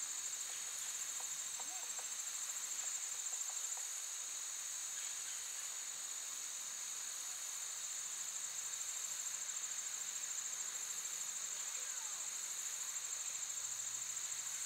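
Steady, high-pitched chirring of an insect chorus, unbroken throughout.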